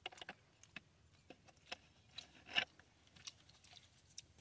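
Quiet chewing and mouth smacks of people eating chicken curry with their hands, tearing meat off the bone, as a scatter of small clicks with one louder click a little past halfway.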